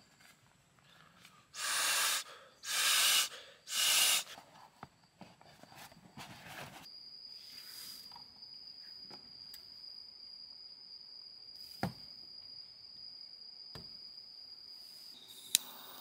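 Three loud rustles of nylon fabric handled by hand, then a steady high insect trill, most likely a cricket at night. Near the end a butane torch lighter clicks and its jet flame hisses.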